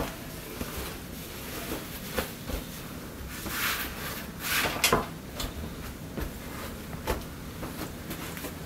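Intermittent light knocks and a few brief scraping sounds of things being handled, over a steady low background.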